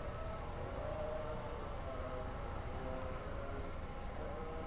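CC 206 diesel locomotive approaching, heard as a steady low rumble with faint wavering tones above it. A steady high insect trill runs behind it.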